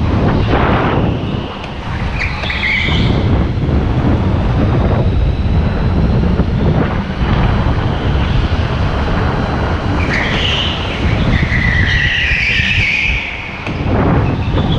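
Indoor go-kart driven hard, a steady rumble of the kart running on the track, with tyres squealing through the corners: briefly about two seconds in and for a longer stretch from about ten to thirteen seconds.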